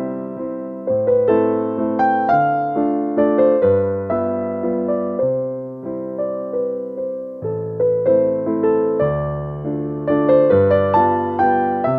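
Background music: a gentle piano tune of struck notes that die away over held bass notes.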